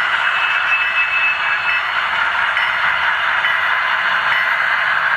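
HO scale BNSF Dash-9 model diesel locomotive running along the track toward the camera: a steady whirring of its motor and wheels, with brief thin high tones coming and going.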